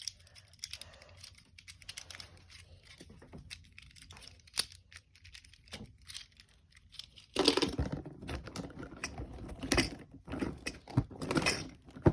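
Plastic fidget toys being handled. There are a few scattered light clicks at first, then from about seven seconds in a louder run of clicking, rattling and rustling as the toys are rummaged through.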